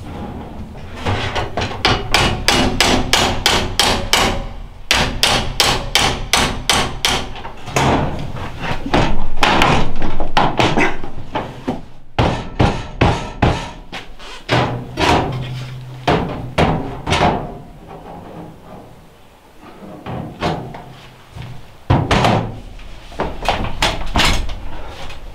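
Quick runs of hammer strikes on the steel stovepipe, about five a second, in bursts of a few seconds with short pauses between.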